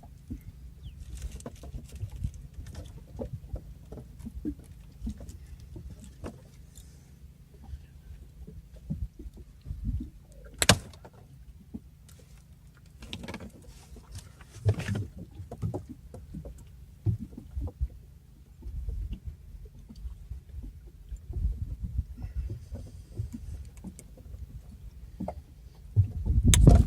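Scattered knocks, clicks and small rattles from handling gear on a small boat, over a low rumble, with one sharp click about ten and a half seconds in and heavier thumps near the end.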